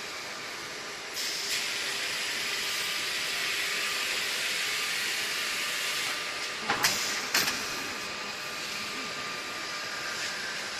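Hot-melt riveting machine working: a steady hiss of air comes in about a second in over a faint machine hum, with two sharp clacks a little past the middle.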